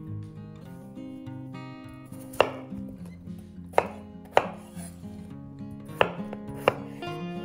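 Knife chopping food on a cutting board: five sharp strokes at uneven intervals, two of them close together in the middle. Soft background music plays underneath.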